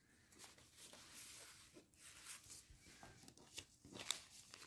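Near silence, with faint crinkling of plastic cross-stitch kit packets being handled near the end.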